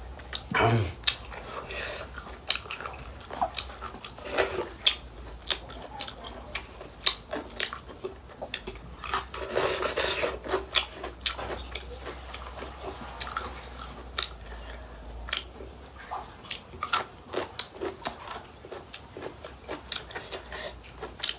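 Close-up eating sounds of a person chewing roast pork and rice: many short wet mouth clicks and smacks, some louder bites in between.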